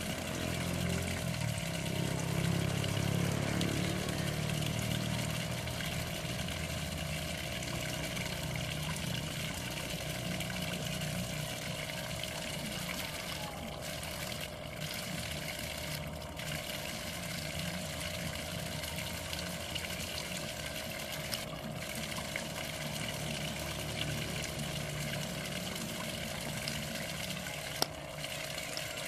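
Steady running and trickling water in a small koi and goldfish pond. A low hum swells under it in the first few seconds.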